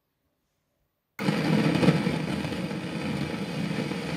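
Loud random noise from the left channel of an Auna CD-708 amplifier, coming through its speaker and starting abruptly about a second in. The noise keeps on with the main amplifier's input unplugged, so the fault lies in the power amplifier stage. The owner guesses the cause is its parallel bridge circuit of D1875 chips (LM1875 copies), which he thinks is unstable.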